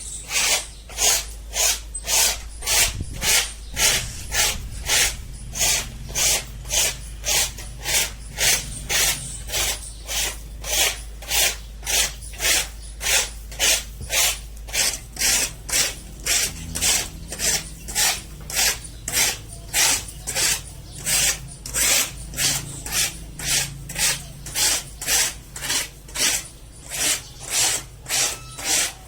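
Steady rhythmic rasping strokes, about two a second, like repeated scrubbing or a hissing spray, over a low steady hum.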